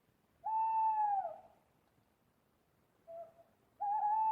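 Owl hooting: a long, steady hoot that drops at its end about half a second in, then a short note and a second long hoot near the end.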